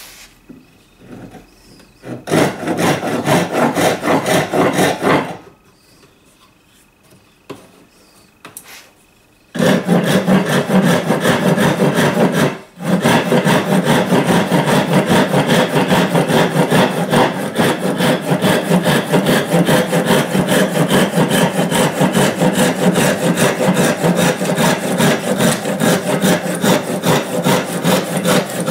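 Japanese kataba rip saw cutting 22 mm oak by hand in fast, even strokes. A short bout of sawing, a pause of about four seconds, then steady continuous sawing from about ten seconds in, with one momentary break a few seconds later.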